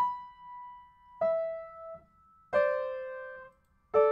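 Piano played with the right hand: four notes struck about one every 1.3 seconds, each left to ring and fade, stepping down in pitch, the last two sounding fuller.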